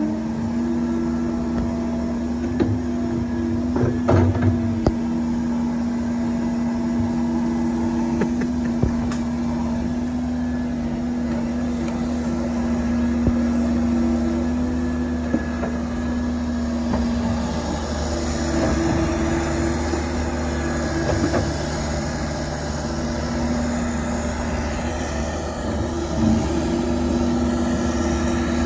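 Cat 308 mini excavator's diesel engine running steadily under load as the machine crawls on its tracks up a sand bank, with a few sharp clanks along the way.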